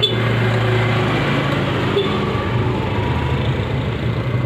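A motor vehicle engine running steadily close by, a low, even hum over street noise.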